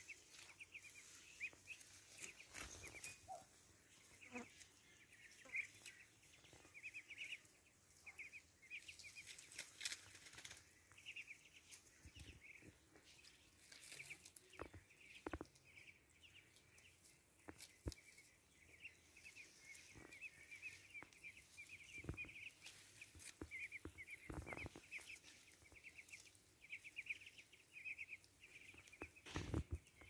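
Faint, steady high peeping from a flock of Muscovy ducklings, quick runs of short peeps coming again and again, with scattered light clicks and rustles.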